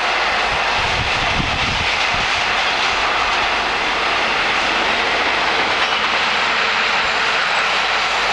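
Freight train of container and swap-body wagons rolling past close by: a steady, loud noise of wheels running on the rails.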